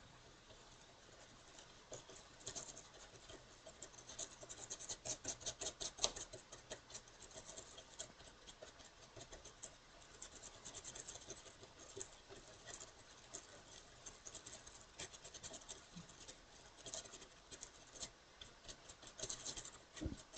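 Faint, irregular scratching and scrubbing on an SSD's circuit board as flux is cleaned off a freshly soldered joint, busiest a few seconds in.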